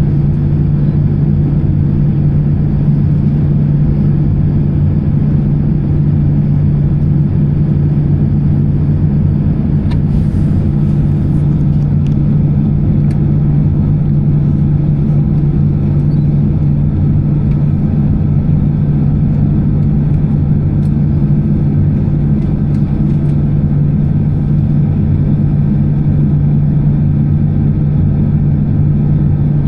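Steady drone of an Airbus A320-214's CFM56 jet engines and airflow, heard inside the passenger cabin, with a deep even hum and no change in level.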